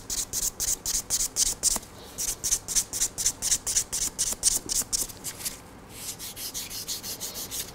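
A buffer file rubbed quickly back and forth over an acrylic nail, about five or six strokes a second, buffing out the file scratches to leave a smooth surface. There is a short pause near the end, and the strokes after it are softer.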